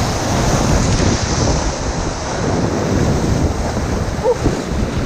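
Whitewater rushing and splashing around a raft in class III–IV rapids, a loud steady wash, with wind buffeting the GoPro microphone.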